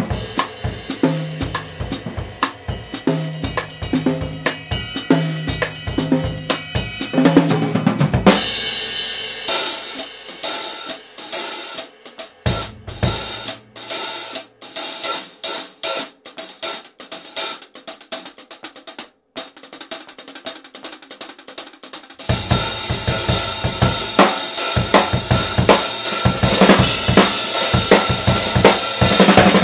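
Drum kit played with a Vulcan Cymbals Live set. A groove with a low drum hit about once a second leads into a fill about eight seconds in. Then comes a sparer stretch of mostly cymbal and hi-hat strokes, and from about 22 seconds the full kit plays louder under a wash of ringing crash and ride cymbals.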